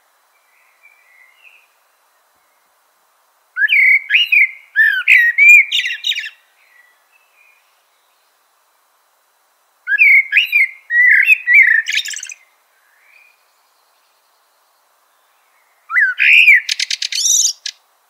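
Northern mockingbird singing: three bursts of quick, varied phrases, each a few seconds long, with pauses of a few seconds between. The last burst ends in a fast rattling trill.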